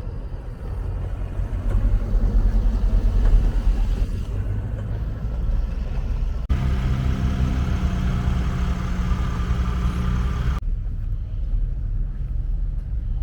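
Vehicle engines running, a steady low rumble across three short clips joined by sudden cuts. The middle clip carries a steady pitched hum.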